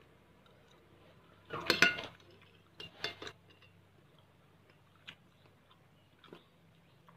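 Metal spoon clinking and scraping against a glass bowl while eating, loudest and ringing about two seconds in, followed by a few lighter taps.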